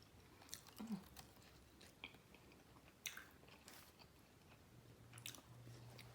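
Faint chewing of chicken wings, with a few soft, sharp mouth clicks spread a second or so apart.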